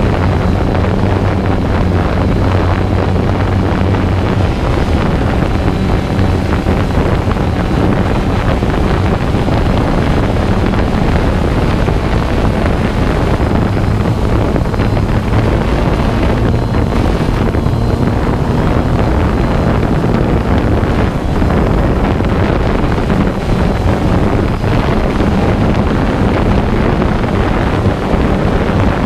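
Small camera drone in flight: the steady buzz of its motors and propellers, with wind noise on its microphone.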